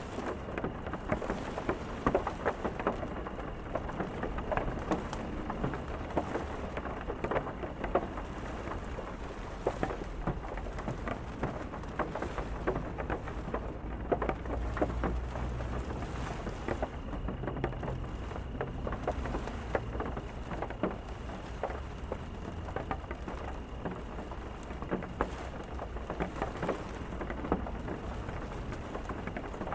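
Steady rain, with many separate drops pattering close by, and a low rumble of distant thunder that swells about halfway through.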